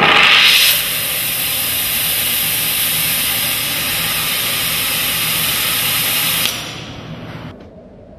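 Gas torch flame of a hydrogen-oxygen gas made from water, lit and hissing loudly. It flares up strongest just as it catches, settles into a steady hiss, and cuts off abruptly about six and a half seconds in.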